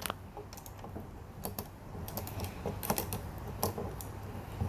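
Plastic Lego pieces clicking and clattering in irregular light clicks as a Lego model is handled and its parts are moved into place.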